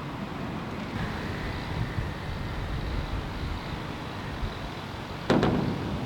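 Steady low rumble of a diesel train running, with a faint high whine over it. Two sharp clicks in quick succession come near the end and are the loudest sounds.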